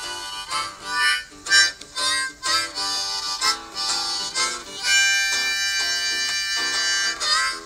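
Background music: a harmonica playing a melody with sliding notes, then holding a long chord for about two seconds near the end.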